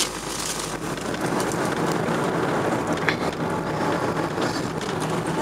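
Car driving at steady speed, heard from inside the cabin: an even rush of tyre and road noise over a low, steady engine hum.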